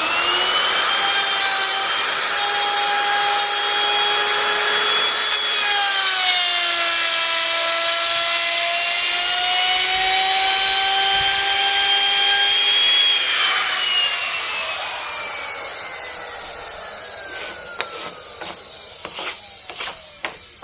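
Electric power tool cutting wood: a steady motor whine whose pitch sags about six seconds in as the tool takes load, then recovers. Around thirteen seconds in it is switched off, and the whine falls away as the motor winds down, followed by a few light knocks.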